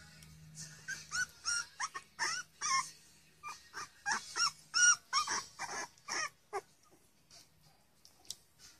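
Three-week-old Pembroke Welsh Corgi puppies squeaking and whimpering as they wrestle and mouth each other: a quick string of short, high squeaks with bending pitch for about six seconds, dying away near the end.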